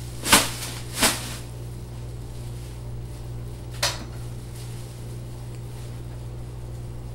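Household objects knocked and handled as belongings are rummaged through: two sharp knocks about a second apart, then a lighter clack a few seconds later, over a steady low hum.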